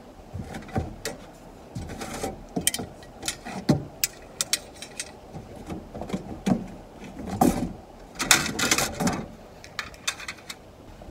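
Loose metal car parts clinking, clattering and scraping against each other as they are rummaged through and lifted out of a cardboard box, with some rustling of the box. The loudest clatter comes about eight seconds in.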